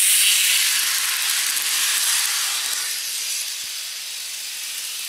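N-scale model train, an electric locomotive hauling passenger coaches on plastic track, running past with a high hissing rush of motor and wheels. It is loudest as it passes and fades after about three seconds to a low hiss as it moves away.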